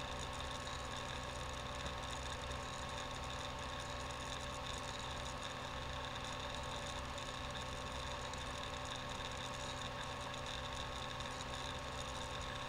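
Steady electrical hum and whir with a few constant faint tones, unchanging throughout; no speech or music.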